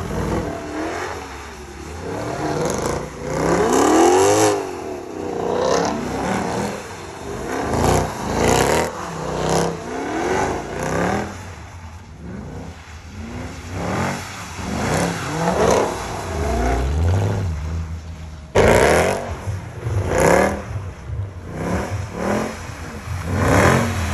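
Mercedes-AMG sedans' V8 engines revving hard in repeated surges while doing donuts on a wet road, the pitch climbing and dropping again and again. A sudden louder surge comes a little over three-quarters of the way through.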